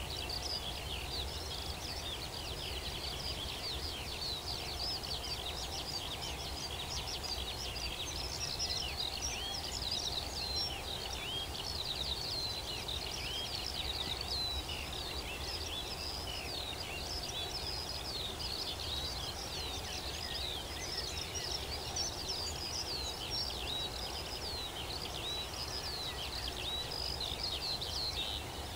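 Many songbirds singing together in a dense, continuous chorus of high chirps and twitters, over a steady low background rumble.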